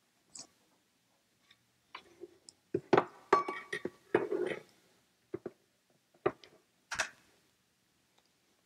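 Kitchen utensils knocking and clinking against a bowl while flour is measured and added to bread dough, in scattered taps with a busier run of clatter and a brief metallic ring about three seconds in.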